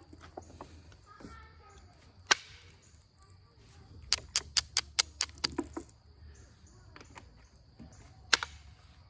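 Sharp clicks of an Onondaga chert point being pressure-flaked with an Ishi stick flaker. A single click comes about two seconds in, then a quick run of about eight clicks, and another click near the end.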